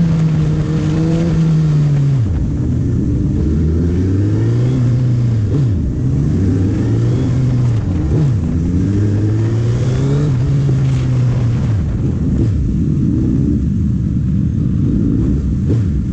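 Suzuki Hayabusa's inline-four engine heard from the rider's seat under way. It holds a steady note for about two seconds, then drops sharply and climbs again several times as the rider closes and opens the throttle. Wind rush runs underneath.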